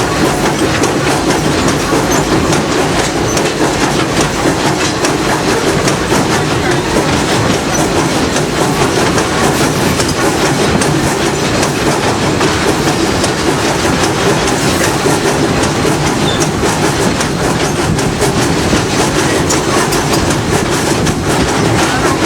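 Passenger train in motion heard from aboard: a steady rolling rumble of coach wheels on the track, with the clickety-clack of wheels passing over rail joints.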